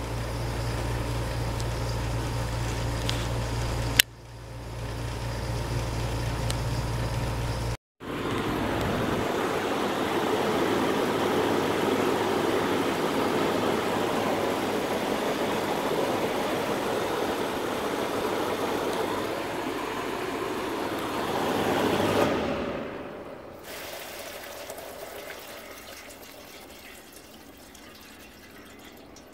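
Old Kenmore cooling unit running, shown in a few short clips cut together: first a steady low electrical hum, then a broad rush of air with a watery trickling sound, which drops to a quieter run about 23 seconds in.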